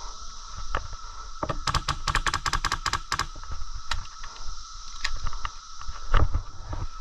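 Airsoft gun firing a rapid string of about a dozen shots, lasting about a second and a half. A few scattered single clicks and knocks come before and after it.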